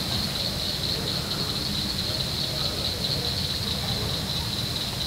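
Night swamp chorus of insects: an unbroken, steady high-pitched trilling, with a dense low rumble underneath.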